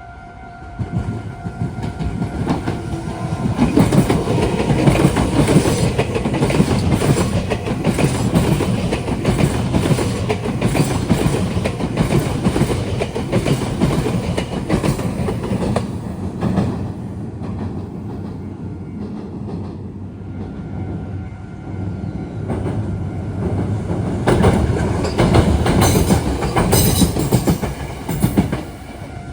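Meitetsu electric trains passing close by, wheels clacking over rail joints and points. The train noise swells about four seconds in, eases around twenty seconds, and swells again near the end. A level-crossing warning bell rings as a steady tone at the start and again at the end.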